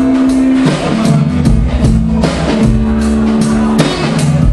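Live band music: an acoustic guitar played over drums in an instrumental stretch with no singing, the low notes held and the drum strikes coming at a steady beat.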